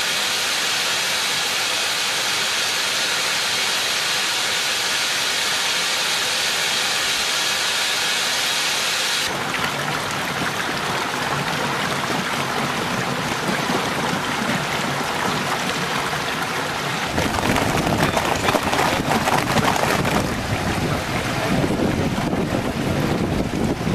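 Water rushing and frothing in a wastewater flotation tank, a steady hiss of churning water. The sound changes about nine seconds in, and from about seventeen seconds it turns into a louder, rougher rush with more rumble.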